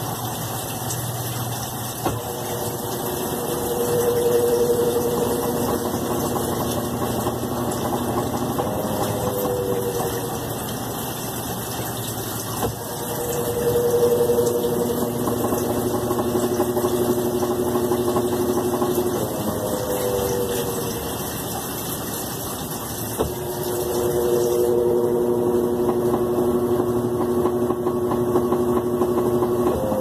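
Brastemp BWL11 top-loading washing machine in its spin cycle, the basket whirring steadily. A motor hum comes in with a click about every ten seconds, three times, and each time drops slightly in pitch before falling away.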